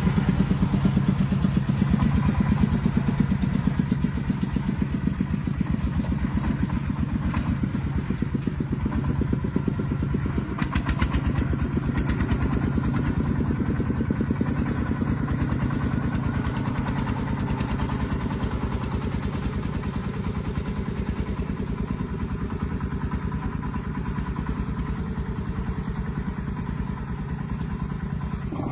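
Tractor engine running steadily with a rapid, even chugging, growing gradually quieter toward the end.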